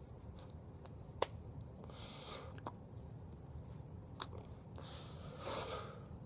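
Low steady room hum, with a few sharp clicks, the loudest about a second in, and two short hissing noises, one about two seconds in and one near the end.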